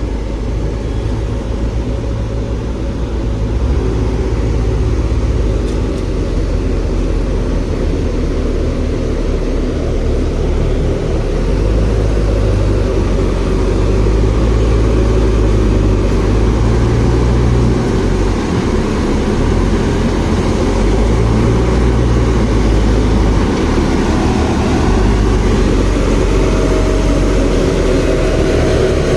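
Heavy diesel engine running steadily with a deep rumble, its pitch rising and falling now and then as it is worked harder and eased off.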